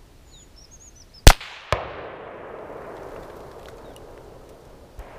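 A single, very loud shot from an A2-pattern AR-15 rifle, followed about half a second later by a second, quieter crack and a long echo fading away over a few seconds. Faint bird chirps come just before the shot.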